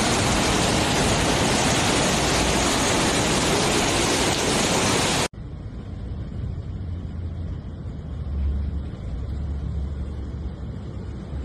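Muddy flash-flood torrent rushing, a loud even roar. About five seconds in it cuts off abruptly to a much quieter low rumble of floodwater running down a street.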